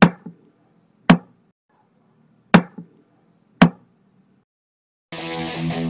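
Four sharp knocks, spaced about a second apart, then electric guitar music starts near the end.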